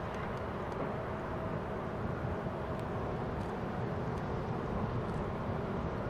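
Boeing 747-8's four GEnx turbofans on final approach with gear down, heard as a steady jet rumble with a faint thin whine in it, growing slightly louder.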